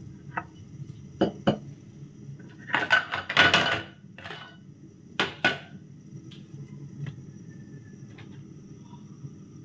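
Kitchenware being handled: scattered clinks and knocks of a ceramic plate and utensils around a non-stick wok, with the loudest clatter about three seconds in and two more knocks a little after five seconds.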